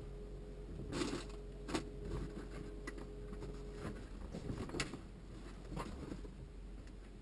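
A few scattered knocks and rustles, with a faint steady hum that stops about four seconds in.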